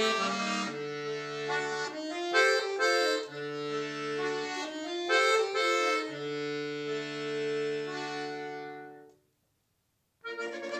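Solo button accordion playing: held chords over sustained bass notes, with short accented chords now and then. The phrase dies away about nine seconds in, followed by a second of silence before the playing starts again.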